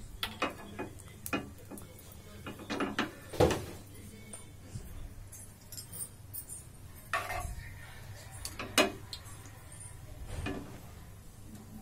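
A few scattered sharp pops and clicks from a frying pan of cumin and mustard seeds in hot oil, as the seeds begin to splutter, over a steady low hum. The loudest comes about three and a half seconds in.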